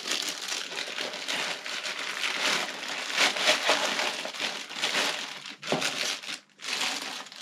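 Continuous crinkling and rustling, as of wrapping or packaging being handled by hand, with two brief pauses about two-thirds of the way through.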